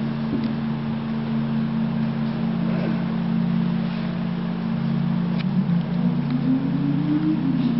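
Low, steady droning accompaniment of several held low tones, with one tone slowly rising in pitch from about six seconds in.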